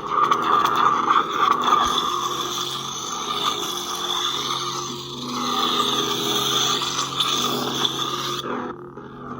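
Lightsaber sound font playing from a Highborn Saber's Asteria soundboard: a steady electric hum that swells and wavers. It drops away near the end.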